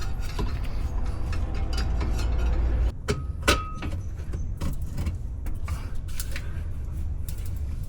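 Metal clinks, taps and jangles, with one short ringing clink about halfway through, over a steady low rumble.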